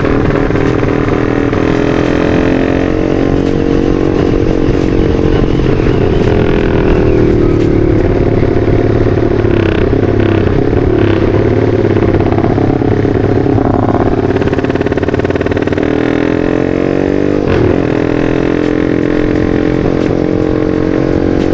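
Bored-up Yamaha Vixion's single-cylinder four-stroke engine running steadily under way, heard from the rider's seat with wind rush. Its pitch sags a little about halfway through and climbs again later.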